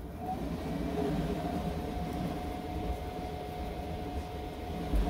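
A steady mechanical hum over a low rumble, with one held tone that fades out near the end, from an unseen engine or machine. A short low thump comes just before the end.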